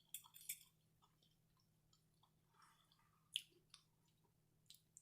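Quiet chewing of food, close to the microphone, with scattered short wet mouth clicks: a cluster at the start, one louder click about three and a half seconds in, and a few more near the end.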